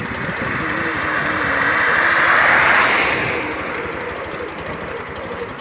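Motor vehicle driving on a paved road: a steady engine hum under a rushing road-and-wind noise that swells to a peak a little before halfway through, then fades.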